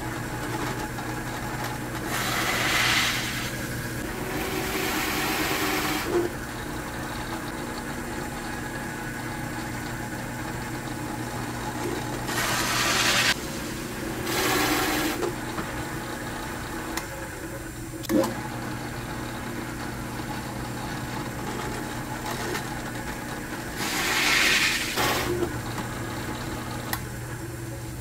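Drill press motor running steadily while a hole saw cuts round holes in a panel: about five short bursts of cutting noise, each a second or so long, over the hum, and one sharp click a little past the middle.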